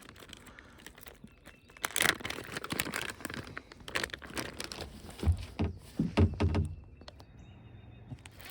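Plastic bag of soft-plastic fishing worms crinkling as it is handled, with scattered clicks and a few dull knocks about two thirds of the way through.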